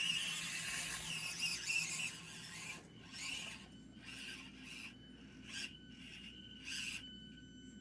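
Axial SCX24 micro RC crawler's small electric motor and gears whining in short surges as it crawls, with tyres scrabbling on dirt and rock.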